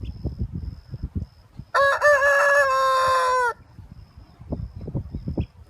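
Rooster crowing once, a loud cock-a-doodle-doo a little under two seconds in that lasts nearly two seconds, ending in a long held note that sags slightly in pitch. Low irregular rumbles come before and after the crow.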